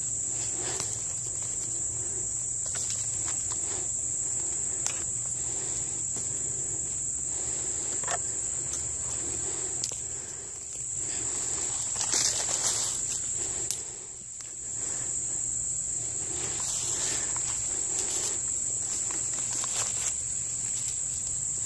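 Insects trilling in one steady high pitch, with scattered short rustles of dry pine needles and leaves as someone shifts on the forest floor.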